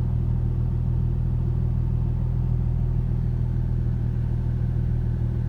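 A steady low mechanical hum with an even drone and no change in level.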